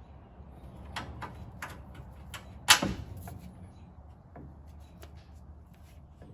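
Metal hand tools clinking and knocking against metal parts, a handful of sharp knocks with one loud clank a little before the middle and a few faint ticks after it.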